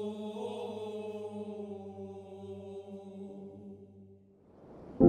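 Background music of slow vocal chant over a steady low drone, fading out about four seconds in. Near the end a rising swell breaks into a sudden, loud new music cue.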